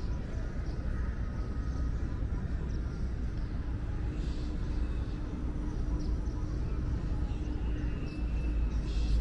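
Wind buffeting the microphone, a heavy low rumble that grows stronger near the end, over steady outdoor background noise with a faint steady hum.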